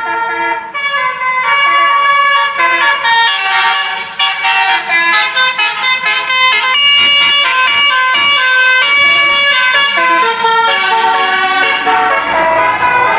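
A bus's Basuri-type telolet musical air horn playing a tune: several horn trumpets sound together and step through a quick run of notes.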